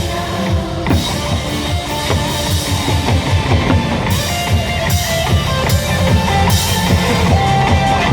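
Instrumental break of a Korean trot song: a steady drum-kit beat with bass drum, under guitar and keyboard melody lines, with no singing.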